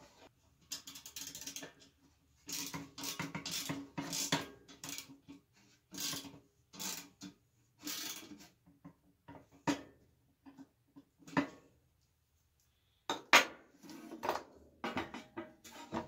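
A screwdriver tightening a small bolt and washer through a steel bracket on a metal one-gallon paint can, with irregular metallic clicks, scraping and clinks. A louder metal clank comes about 13 seconds in as the can is handled.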